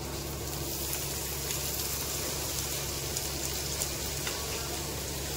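Onions frying in hot oil in a kadai: a steady sizzling hiss with scattered small crackles.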